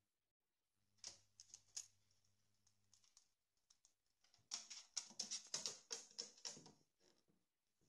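Light, quick clicking taps from a carrion crow's claws and beak on a board floor as it takes a quail egg and walks off with it: a few taps about a second in, then a dense run about halfway through.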